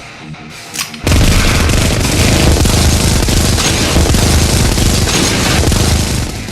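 Battle sound effect of dense rapid gunfire and booms. It starts suddenly about a second in, after a brief sharp crack, runs loud for about five seconds, and eases off near the end.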